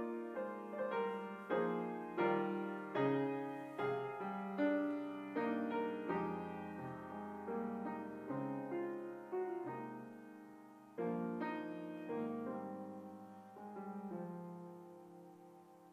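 Grand piano playing a slow hymn-style piece in struck chords about every half second, with a louder chord about eleven seconds in that then fades away.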